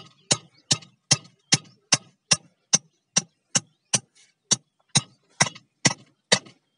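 Steady hammering: a regular run of sharp strikes, a little over two a second, each the same loudness.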